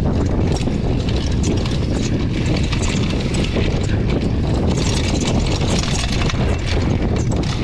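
Mountain bike descending a rough dirt trail at speed: a steady rumble of wind on the camera microphone with tyre noise on dirt, broken by rapid clatter and knocks from the bike rattling over bumps.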